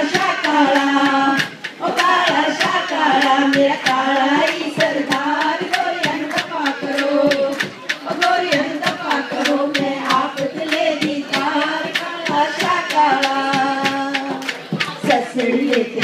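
A woman singing a Hindi folk song into a microphone, her voice amplified, over a steady hand-drum beat.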